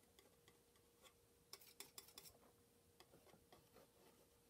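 Faint, irregular small clicks and taps of a palette knife dabbing oil paint onto a painting panel, a quick cluster of them about halfway through, over near-silent room tone with a faint steady hum.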